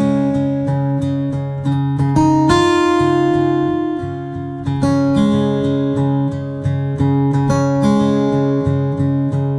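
Background music: acoustic guitar strumming chords that change every second or two.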